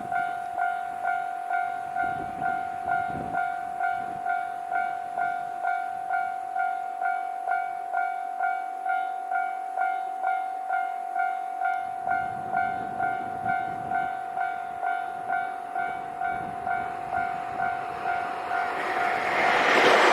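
Japanese level-crossing warning bell ringing steadily, an electronic two-tone ding about twice a second. Near the end the noise of the approaching JR Hokkaido H100 (DECMO) diesel-electric railcar swells up under the bell.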